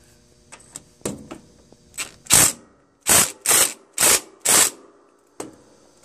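Cordless driver on a rusted lawn-tractor brake bolt, run in five short bursts about half a second apart after a few light clicks. The bolt is stubborn and does not come loose.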